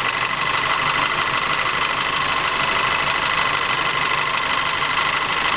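Audi TT 2.0 TFSI four-cylinder engine running with a fast, even knock that repeats steadily. The diagnosis found low compression and misfiring in one cylinder.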